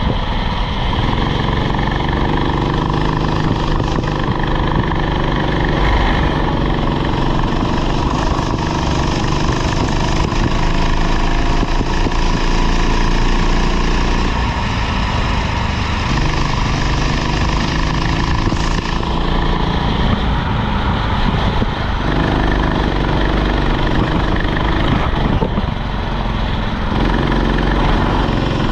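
Rental go-kart's small engine running hard, its pitch dropping and climbing again several times as the kart slows for corners and accelerates out.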